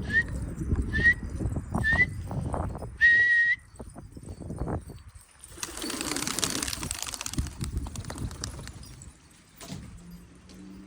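Three short rising whistles about a second apart, then a longer held whistle, the way a pigeon keeper whistles to his pigeons. They come over low rumbling handling noise and are followed by a burst of rustling noise a few seconds later.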